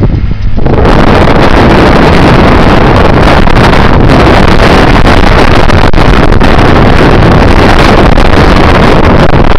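Strong wind buffeting the microphone, a loud, near-constant rushing roar that jumps up about a second in.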